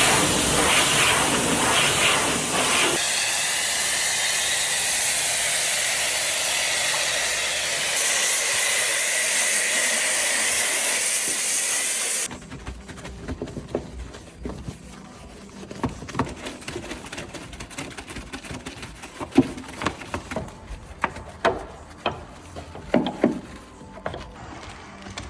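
A loud, steady hiss of high-pressure spray runs for about twelve seconds and then cuts off suddenly. After that come quieter, scattered knocks and taps.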